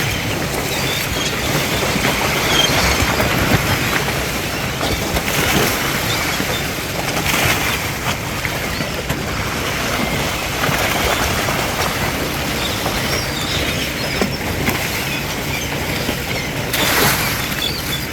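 A shrimp boat's engine running steadily under an even, noisy hiss.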